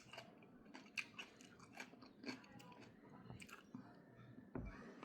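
A person chewing and biting food close to the microphone, with faint, irregular crisp crunches a few times a second and a low thump near the end.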